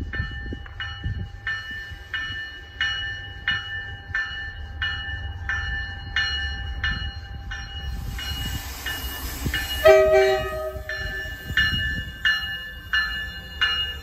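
MBTA cab car 1702's horn sounds one short blast about ten seconds in as the commuter train approaches, over a warning bell ringing steadily about one and a half times a second and the low rumble of the oncoming train.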